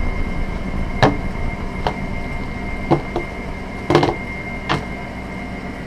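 About six light, sharp knocks and clicks as small objects and packaging pieces are handled and set down on a tabletop, over a steady background hum.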